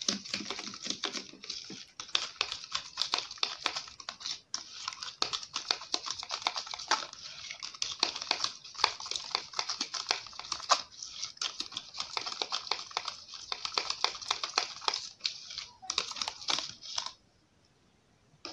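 Metal spoon stirring briskly in a clear plastic bowl of lemon juice and oils: a fast, continuous run of clicks and scrapes against the bowl, stopping shortly before the end.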